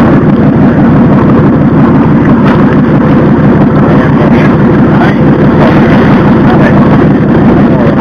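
Boat engine running steadily, loud and close.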